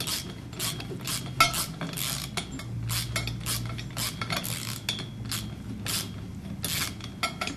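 Socket ratchet clicking and metal mount parts clinking as a nut is tightened onto a carriage bolt, in short, irregular clicks a few times a second.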